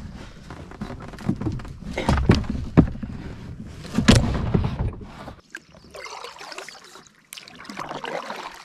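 Knocks and thumps of a person climbing from a wooden dock into a kayak and settling into the seat. About five seconds in, these give way to a kayak paddle dipping and splashing in the water.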